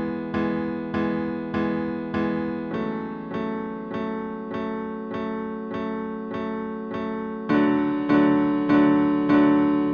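Electric piano repeating a chord, struck about every half second. The chord changes about three seconds in and gets louder and fuller near the end.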